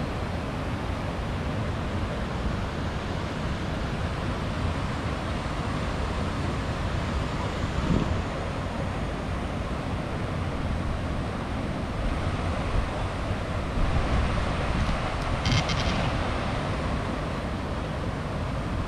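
Steady rushing noise of a mountain stream mixed with wind buffeting the microphone. A brief burst of rapid clicking comes about fifteen seconds in.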